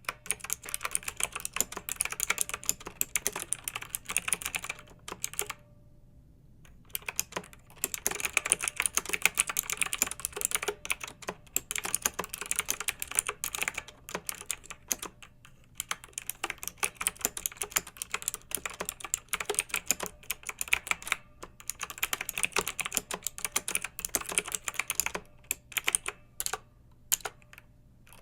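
Clicky mechanical keyboard being typed on in quick, uneven runs of keystrokes. The typing stops for about a second and a half around six seconds in, pauses briefly about halfway through, and thins out into a few scattered keystrokes near the end.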